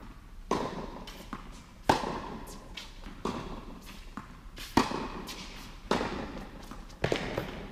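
Tennis ball being struck by racquets and bouncing on the court in a rally: six sharp pops about every one and a half seconds, the loudest around two and five seconds in. Each hit rings out with a long echo in the big indoor hall.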